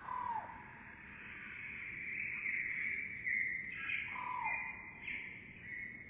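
Bird calls played back slowed down, so they sound deep and drawn out: a short falling note near the start and another about four seconds in, with a longer, higher drawn-out call between them.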